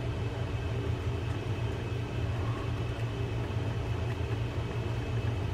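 A steady low hum, with no distinct handling clicks.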